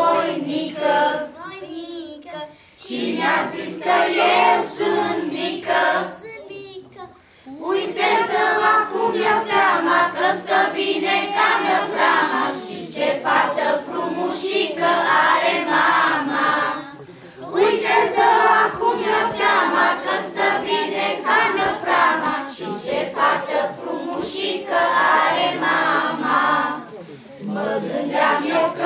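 Children's choir singing together, in long phrases separated by short breaths.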